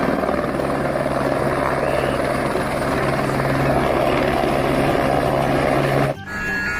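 Helicopter rotor and engine sound, a steady fast chopping over a low hum, which cuts off suddenly about six seconds in.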